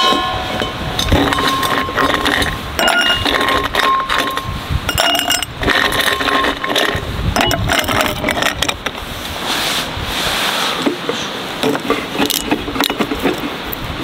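Ice cubes dropped into a tall drinking glass, clinking repeatedly against the glass and each other.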